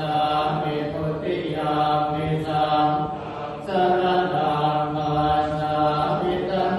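Thai Buddhist chanting: male voices reciting verses on a steady, nearly unchanging low note in long phrases, with short breaks about a second in and again about three and a half seconds in.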